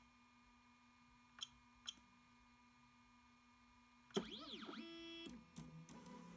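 Ultimaker 2GO 3D printer's stepper motors whining as the print head and build plate move, the pitch rising and falling with each acceleration and then holding at a few steady pitches, starting about two-thirds of the way in, over a faint steady hum from the machine. Two soft clicks come in the first two seconds.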